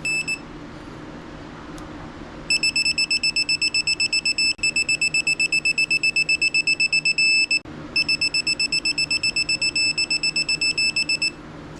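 Digital torque wrench beeping rapidly while bolts are tightened to a set torque. About seven seconds in, the beeping turns into a short steady tone, the signal that the set torque has been reached, and then the rapid beeping starts again on the next bolt.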